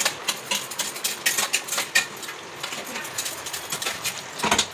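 A spoon stirring a curry in a metal pan, with irregular clicks and knocks of the spoon against the pan.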